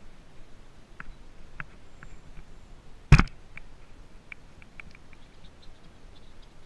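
Bicycle and helmet-mounted GoPro jolting over a bumpy mowed grass trail: scattered light clicks and ticks, with one loud knock about three seconds in.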